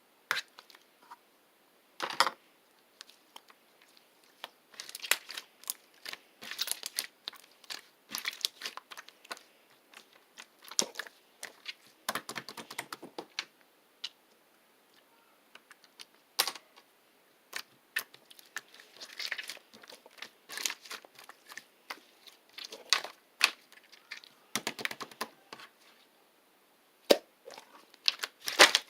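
Slime being squished and stretched by hand, giving irregular bursts of crackling and popping clicks with short pauses between.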